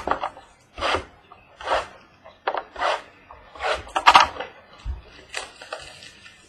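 A trading-card box's packaging being handled and torn open: a series of short rasping tears and rubs, about one a second, with a loud double one about four seconds in.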